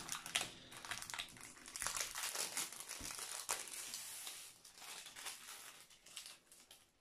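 Crinkling of the plastic wrapping around a rolled diamond-painting canvas as it is handled and turned, busiest in the first few seconds and growing sparser and quieter toward the end.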